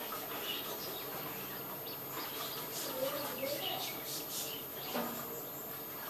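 Small birds chirping: short, high chirps scattered over a steady background hiss.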